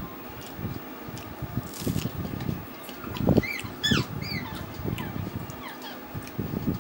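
Soft, irregular wet squelches and smacks of rice and tilapia curry being mixed by hand and eaten. A little past halfway, a few short high chirps from an animal.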